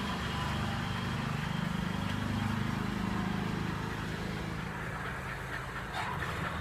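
Riding lawnmower engine running steadily, a low hum whose pitch wavers slightly.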